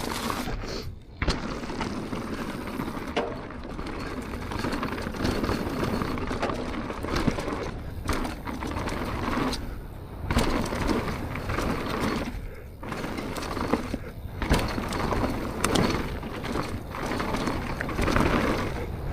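Propain Tyee downhill mountain bike descending a dirt trail at speed: a steady rough noise of the tyres rolling over the ground, with a few sharp knocks from the bike over bumps.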